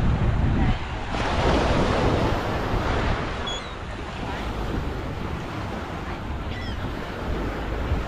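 Small ocean waves breaking and washing up the beach, with wind rumbling on the microphone; one wash swells louder about a second in. Two faint high chirps come through partway along.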